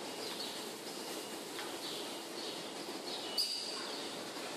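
Milking parlour machinery running steadily, with a string of short high chirps and, about three and a half seconds in, a single sharp click followed by a brief high hiss.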